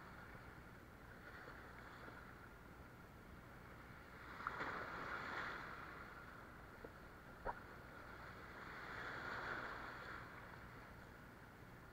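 Small sea waves washing and fizzing over shoreline rocks: one swell of surf about four seconds in and another near nine seconds, with a couple of faint sharp clicks between them.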